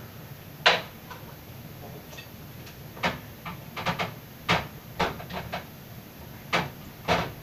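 Kitchen utensils and containers knocking and clicking on the counter while food is handled: about eight sharp, irregular knocks, the loudest about a second in.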